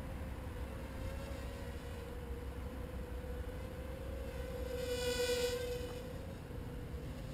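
Tiny ladybird-size quadcopter's brushed motors and propellers buzzing steadily in flight at one high pitch, growing louder and brighter about five seconds in as it passes close.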